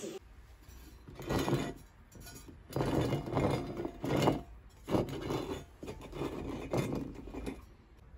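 Thin sheet-metal pieces of a home-made, spot-welded bench-grinder base being handled and set down: a series of about six short scrapes and clinks with pauses between them.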